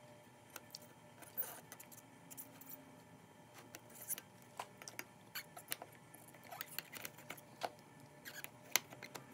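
Scattered small metallic clicks and ticks as needle-nose pliers grip and work a steel tube on a slot-car chassis while the solder joint is heated to free it. The loudest click comes near the end.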